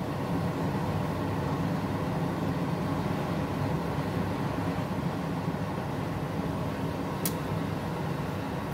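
Steady hiss and bubbling of oil around a bread-wrapped ice cream ball deep-frying in a saucepan, over a low steady hum, with a single sharp tick about seven seconds in.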